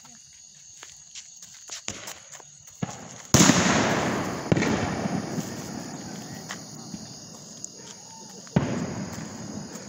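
Consumer fireworks going off at ground level: a sudden loud burst of hissing and crackling about a third of the way in that fades over several seconds, with a sharp crack a second after it, then a second burst near the end.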